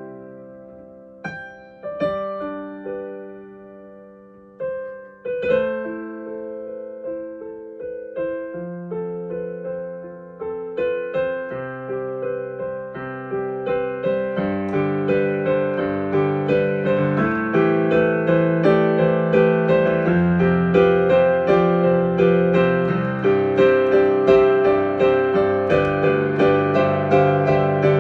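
Solo piano improvising a slow, gentle piece: widely spaced chords left to ring out at first, then about halfway in a steadier, fuller flow of notes that grows louder.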